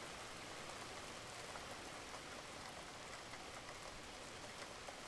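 Faint, steady hiss of noise with a fine patter-like texture, without tones or strokes.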